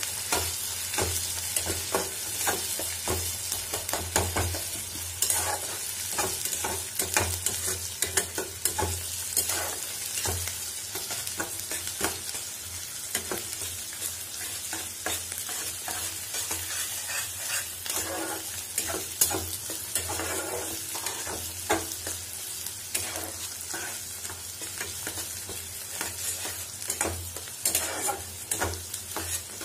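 Chopped onion, garlic, ginger and green chilli frying in mustard oil in a kadai, sizzling steadily, while a spatula stirs and scrapes through them against the pan in frequent short strokes.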